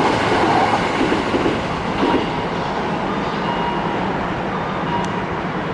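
Hankyu electric train running past on jointed rail, its wheels clattering over the rail joints, the noise easing a little after about two seconds.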